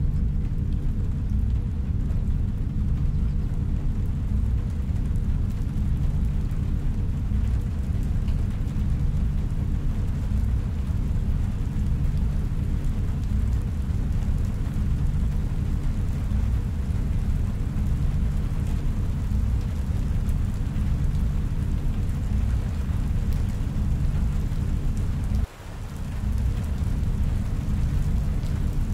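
Futuristic room ambience: a steady, deep rumbling drone with a faint hum and a thin hiss above it. About 25 seconds in it drops out abruptly and swells back within a second.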